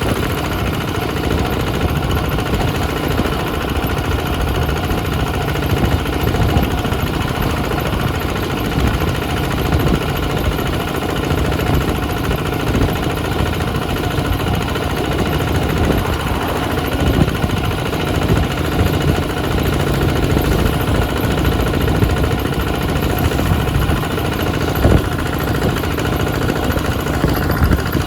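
Two-wheel walking tractor's diesel engine running steadily.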